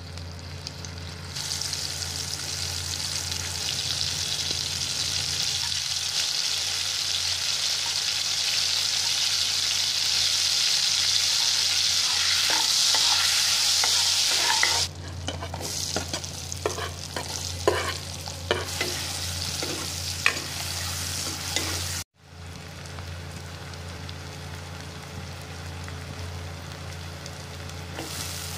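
Butter sizzling in hot oil in an aluminium kadai, a loud steady hiss that builds over the first few seconds. Partway through, the hiss drops and a metal ladle clicks and scrapes against the pan as whole spices are sauteed. Later, sliced onions fry more quietly while being stirred.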